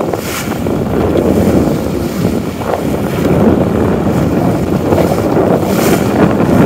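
Heavy wind noise buffeting the microphone aboard a sailing yacht under way, over the rush of the sea. It swells briefly about three times.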